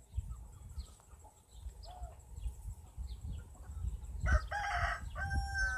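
A rooster crowing, starting about four seconds in, with a few fainter fowl calls before it.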